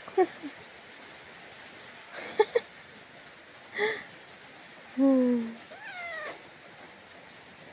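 Domestic cat meowing: a few short calls, then two longer meows about five and six seconds in, the first falling in pitch.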